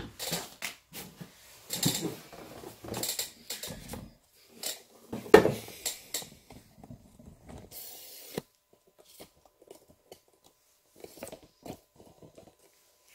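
A cardboard shoebox and a pair of sneakers being handled and set down on the floor: scattered rustles and taps, with one sharp knock about five seconds in, the loudest sound. A short papery rustle follows around eight seconds, then only faint small clicks.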